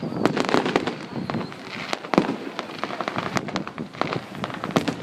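Fireworks going off in a rapid, irregular string of bangs and crackles, with one sharper bang about two seconds in.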